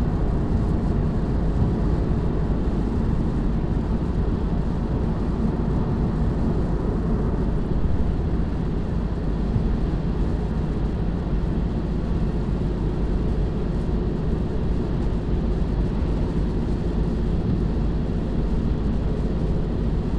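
Steady drone of road, tyre and wind noise with the V8 engine underneath, heard inside the cabin of a 2018 Ford Mustang GT cruising at highway speed on a wet interstate.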